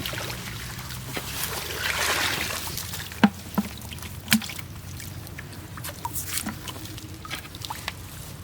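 Water splashing and trickling, with three sharp knocks around the middle and small scattered clicks.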